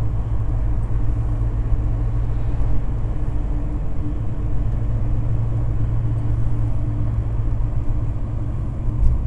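Car engine and road noise heard from inside the cabin of a moving car: a steady low rumble.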